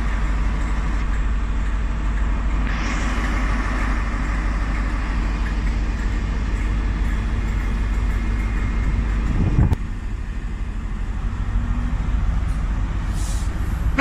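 Class 43 diesel power car of an InterCity 125 High Speed Train running steadily as the train passes close by, with rail noise. A sharp knock comes about ten seconds in, after which the engine's low hum drops away.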